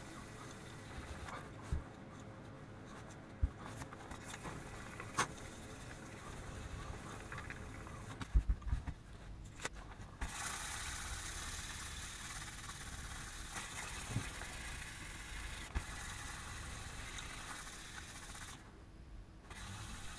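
Fine wet sandpaper (3000 grit, the last and finest paper) rubbing over a steel axe head, faint and steady. A cluster of knocks about eight to ten seconds in as the heavy head is shifted and turned on the bench.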